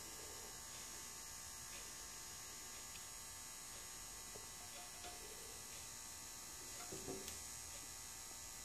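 Faint, steady electrical hum with low hiss, with a couple of faint short knocks about seven seconds in.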